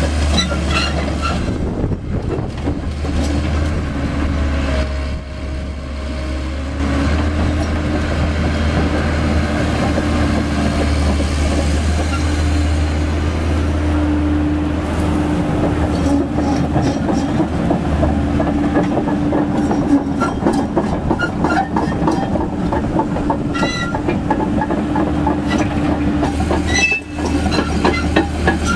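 Komatsu PC130F crawler excavator travelling: its diesel engine runs steadily under the clank and squeal of the steel track links rolling over the paving. The clatter of the tracks grows busier about halfway through.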